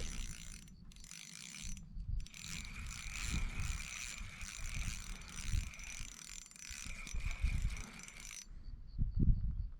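Fishing reel being cranked to bring in a hooked bass, its gears making a steady whir in stretches with short pauses, stopping near the end.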